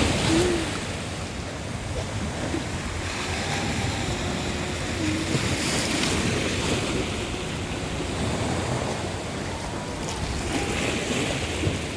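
Sea waves washing onto the shore, a steady rush with two waves swelling up about halfway through and near the end, and wind rumbling on the microphone.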